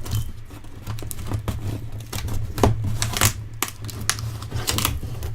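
A dull knife cutting and sawing through the packing tape and cardboard of a mailed box: irregular scraping and tearing strokes with some crinkling.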